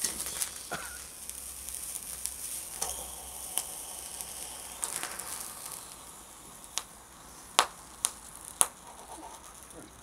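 Thermite (aluminium and iron oxide) burning in an aluminium drink can: a steady hissing sizzle that fades after about five seconds as the reaction dies down, then three sharp pops close together.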